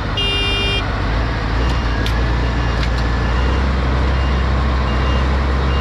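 Heavy farm machinery engines running and building under load as tractors strain on a chain to pull a bogged forage harvester, the low engine sound getting stronger about a second in. A short high beep sounds at the start, then faint regular warning beeps repeat through the rest.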